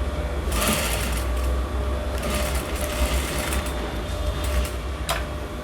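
Sewing machine running, stitching a seam in fabric, with a steady low hum and one sharp click near the end.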